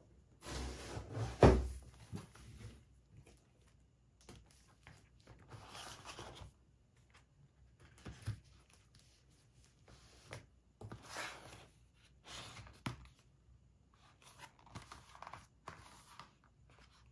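Cardboard boxes and a large paper print being handled on a desk: several short bouts of rustling and sliding, with one sharp knock about a second and a half in as a box is set down, the loudest sound.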